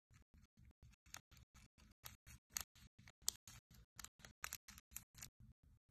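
Candy sprinkles shaken from a small plastic cup onto soft slime in a plastic tub: faint, crisp rattling and ticking that starts about a second in and stops near the end.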